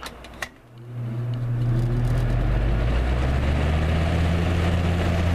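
1999 Lasko 3733 20-inch box fan switched on to high: a click, then the motor hum and the rush of air from the blades build up over about a second as it spins up, and run steadily at full speed.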